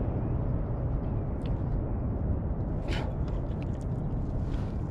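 Steady low rumble of wind and sea around a small canoe, with a few faint clicks, the clearest about three seconds in.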